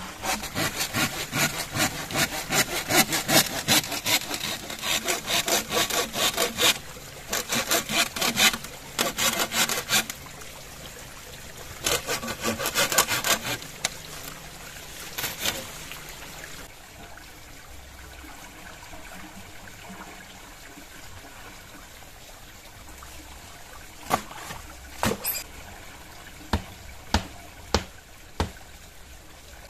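Hand saw cutting through a green bamboo pole in quick back-and-forth strokes, in several bouts with short pauses over the first half. After that a steady trickle of running water, and a few sharp knocks near the end.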